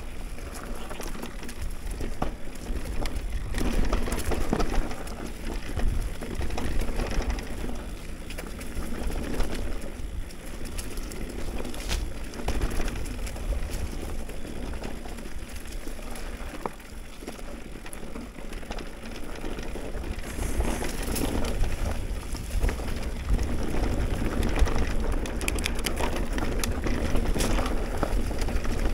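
Mountain bike riding on a dirt trail: tyres rolling over dirt with many small rattles and clicks from the bike, and wind rumble on the microphone.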